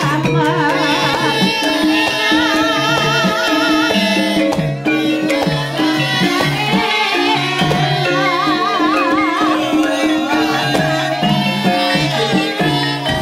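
Javanese gamelan music for a lengger dance: hand-drum (kendang) strokes in a steady pattern under ringing metallophone notes, with a wavering, heavily vibrated high melody line, likely a female singer, coming in and out three times.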